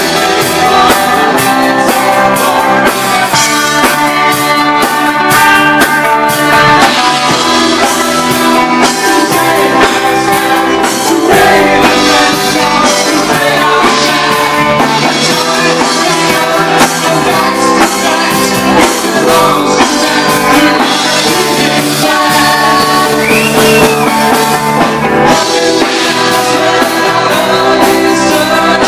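Live rock band playing, with distorted electric guitar, bass guitar and drum kit in a steady beat.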